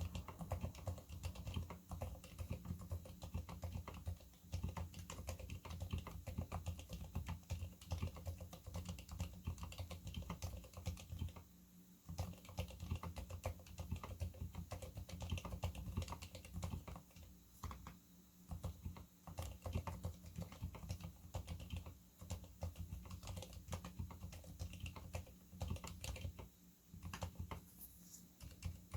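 Typing on a Leopold FC660M keyboard fitted with lubed silent red switches, lubed and taped stabilizers and sound-dampening foam: a quick, continuous run of muted keystrokes with deep thuds. There is a brief pause about twelve seconds in.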